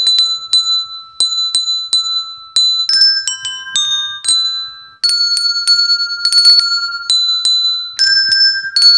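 A set of coloured handbells rung one after another, picking out a simple melody note by note. At first one bell is struck over and over on the same note; from about three seconds in, other bells join with different pitches.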